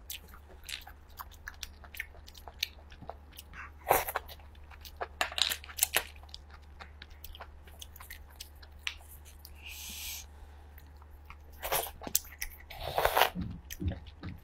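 Close-miked eating of shellfish: chewing and crunching, with scattered sharp clicks and cracks as seafood shells are broken and peeled apart by hand. The loudest crunches come about 4 s in and again near the end, with a brief rustle about 10 s in.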